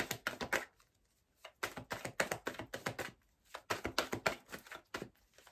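Rapid, light clicking and tapping in three quick bursts with short pauses between them.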